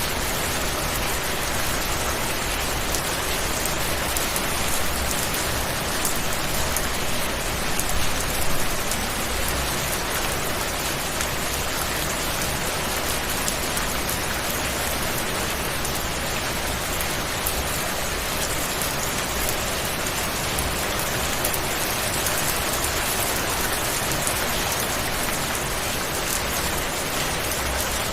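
Steady rain falling on a surface, an even hiss of drops with a few slightly louder spatters about eight seconds in.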